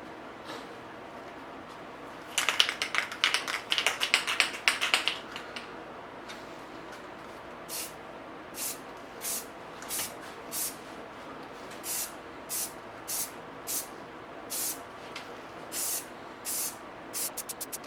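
Aerosol spray-paint can shaken hard, its mixing ball rattling rapidly for about three seconds. Then the can is sprayed in a series of short hissing bursts, each well under half a second and about two thirds of a second apart.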